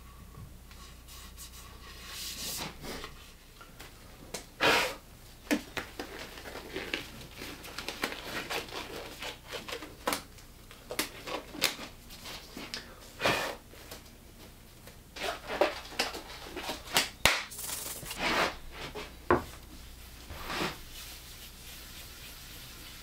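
Rustling, scraping and scattered clicks of hands handling things on a workbench, with several sharp knocks and taps. Near the end comes the start of a pad rubbing finish onto a plywood panel.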